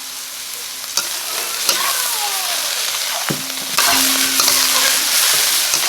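Dried shredded radish, pork and preserved mustard greens stir-frying in a pan: steady sizzling with a spatula stirring and scraping, and a few sharp knocks of the spatula. The sizzle gets louder about four seconds in.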